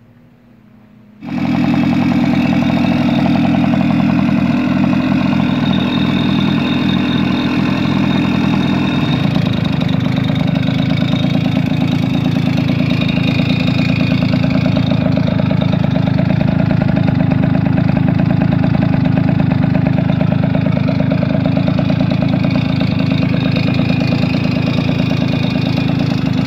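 Tomos moped's two-stroke single-cylinder engine idling steadily, coming in abruptly about a second in.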